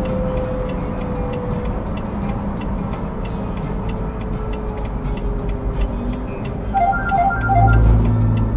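Road noise inside a moving RV's cab at highway speed, with a steady rattle of ticks and a slowly falling drone. About seven seconds in, a short run of electronic beeps sounds alongside a louder low rumble.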